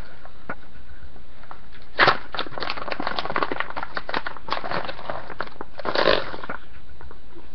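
Clicks, knocks and rustling of paintball-marker parts being handled, over a steady background hiss: a sharp knock about two seconds in, a run of small clicks after it, and another cluster of knocks about six seconds in.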